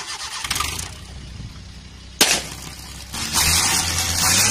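Small car's engine running with a balloon over the tailpipe, its exhaust rushing into the balloon. A single sharp crack comes about halfway through, and near the end the exhaust rush and engine note grow louder as the engine is revved.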